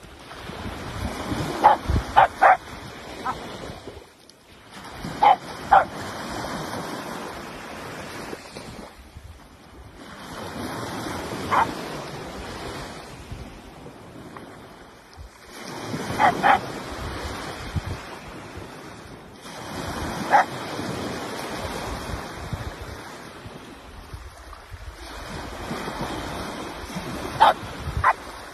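Dachshund barking in short sharp barks, singly or in quick runs of two to four, every few seconds, over the steady wash of surf breaking and running up the sand.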